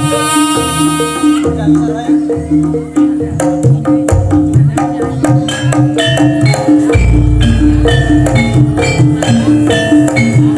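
Live barongan accompaniment music: a held wind-instrument melody ends about a second in, then drums and struck metal keyed instruments carry on in a fast, steady, driving beat. A deep low tone joins about seven seconds in.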